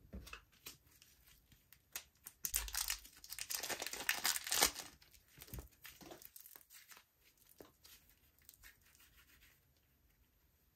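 Slime being stretched, pressed and pulled apart by hand, giving a run of fine crackling and clicking that is densest a few seconds in and thins out towards the end.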